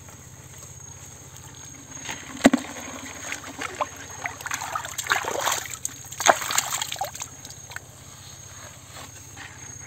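A hand sloshing and splashing in a small hole of muddy water, with one sharp knock about two and a half seconds in. The splashing goes on irregularly for several seconds, then stops.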